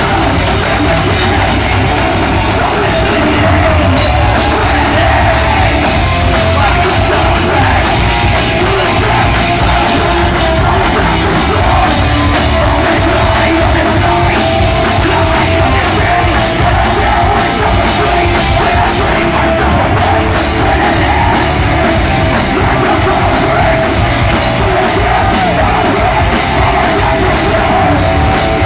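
Live heavy metal band playing loud, with yelled vocals over distorted electric guitars, bass and drums. The sound is a dense, unbroken wall of sound.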